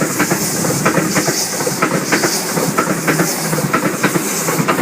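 Waratah electric multiple-unit train passing, its wheels clicking rapidly and unevenly over the rail joints over a steady hiss of running noise.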